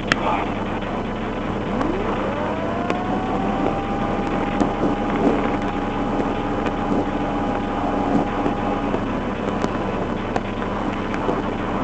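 Patrol car idling with a steady low hum, with light wind on the microphone and a few faint clicks. About two seconds in, a whine rises quickly in pitch, holds steady, and stops about nine seconds in.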